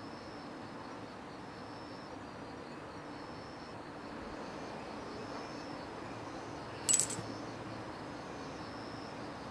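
A coin dropped into a hanging stone offering dish already holding coins: a brief, sharp double metallic clink about seven seconds in. Behind it, insects chirp steadily.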